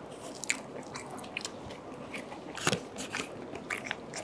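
Close-miked eating: a person chewing and biting food, with irregular crunchy clicks, the strongest a little past halfway through.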